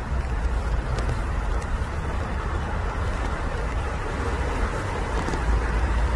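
Steady low rumble of distant road traffic, with an even noisy haze above it.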